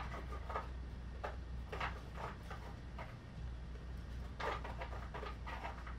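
Coloured pencil scratching on sketchbook paper in a series of short, uneven strokes as hand-lettering is written, over a faint steady hum.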